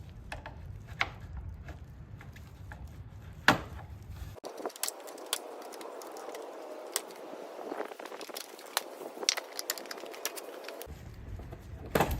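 Scattered sharp clicks and light knocks of a plastic truck grille assembly and its clips being handled during removal. A low background rumble drops out abruptly for a stretch in the middle.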